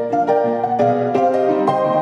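Background music: a piano playing a run of notes, several a second, over held chords.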